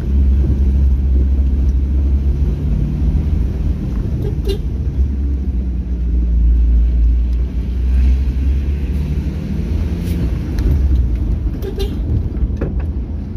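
Vehicle driving along a village road, heard from on board: a steady low rumble of engine and tyres with a faint engine hum. A few short knocks or rattles come through now and then.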